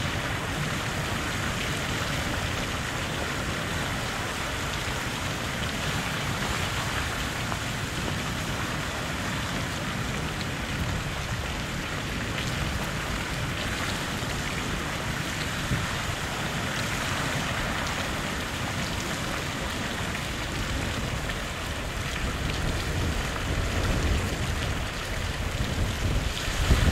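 Water rushing steadily through an open dam spillway gate and churning into white-water rapids below. Wind starts buffeting the microphone near the end, adding a low rumble.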